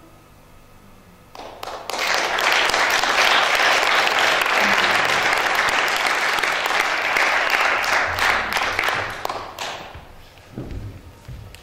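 Audience applause. It starts about a second and a half in, holds steady, and fades out near the end, with a few low thumps as it dies away.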